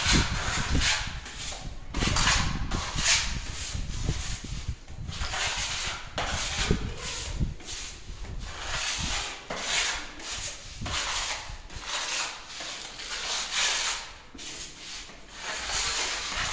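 Hand-sanding a painted or puttied interior wall with an abrasive pad, in repeated rasping strokes with short breaks.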